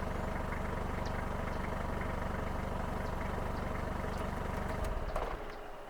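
Vehicle engine idling steadily, then cutting out near the end.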